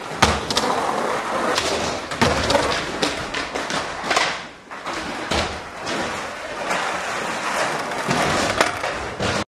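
Skateboard wheels rolling over the ramp and floor, broken by several sharp clacks and thuds as the board hits the ground and the rider bails.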